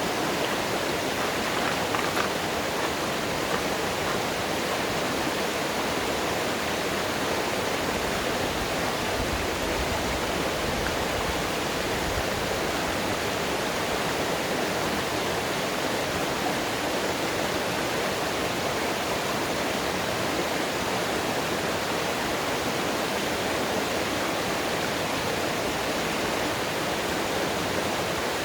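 Running mountain water: a steady, unbroken rush with no change in level.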